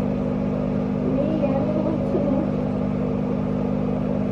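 A steady low mechanical hum runs throughout, with a faint murmur of voices about a second in.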